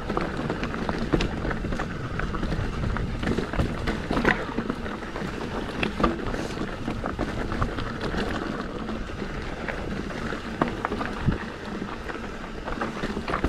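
Mountain bike rolling down a rocky dirt trail: tyres crunching over loose rock and the bike rattling, with many short clicks and knocks, under steady wind noise on the microphone.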